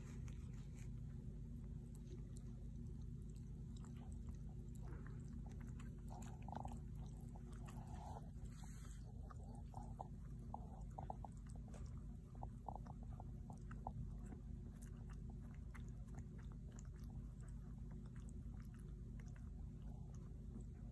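Faint wet clicking and smacking sounds from a litter of newborn puppies and their mother, with a few brief soft squeaks about a third of the way in, over a steady low hum.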